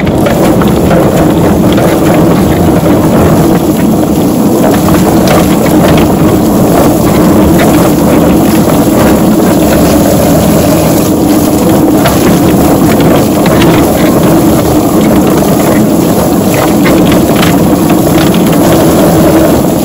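SuxiDi 110V electric drum poultry plucker running steadily, tumbling a scalded turkey against its rubber plucking fingers with irregular slaps, while water from a hose spray nozzle hisses into the drum to wash the feathers out.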